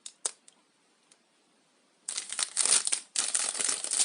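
Plastic packaging crinkling and rustling as a plastic tackle box is unwrapped, starting about two seconds in after a couple of light clicks.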